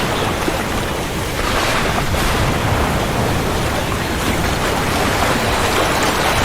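Steady heavy rain, an even hiss with a low rumble underneath and a few gentle swells in strength.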